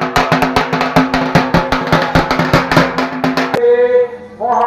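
Fast, evenly paced drumming over a steady pitched tone, about seven strikes a second, that cuts off sharply about three and a half seconds in. A voice then sets in, holding long, steady pitched notes.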